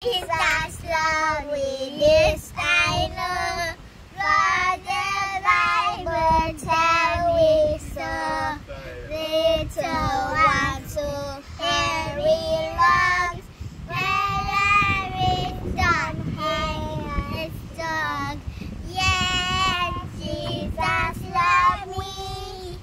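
A young girl singing a song in a child's high voice, held notes in phrases with short breaths between them.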